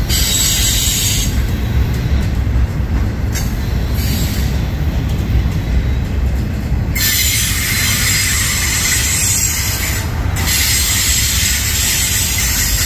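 Double-stack intermodal train's well cars rolling past, a steady low rumble of steel wheels on rail. A high-pitched wheel squeal comes and goes, present at the start and again through most of the second half.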